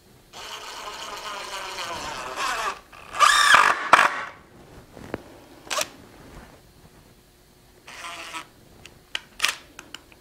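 Cordless drill driving screws into a wooden truss: a long run of the motor that ends in a louder burst, then a shorter run later, with scattered clicks and taps in between.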